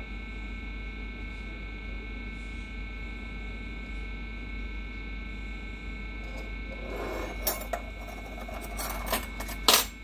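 A steady electrical hum with several fixed tones. In the last three seconds come a few sharp clicks and knocks as a small flavoring bottle with a red flip-top cap is handled.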